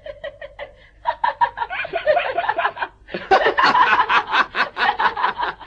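A man laughing in quick rhythmic bursts. The laugh starts softly, grows louder about a second in, and is at its loudest from about three seconds in.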